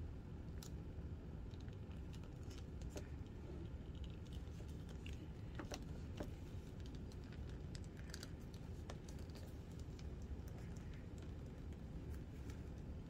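Hands handling and folding a vinyl strip over tubing: faint, scattered clicks and taps, irregularly spaced, over a low steady hum.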